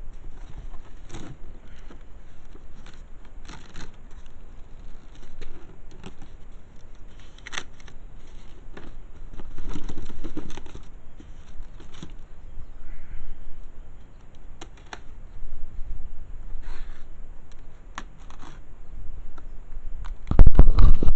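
Cardboard box and packing of a model kit being handled and unpacked: scattered clicks, scrapes and rustles, with a loud knock near the end.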